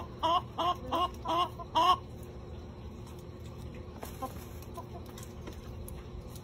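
Hens clucking while pecking at spent brewing grain: a quick, regular run of clucks, about three a second, that stops about two seconds in. After that only a few faint ticks remain.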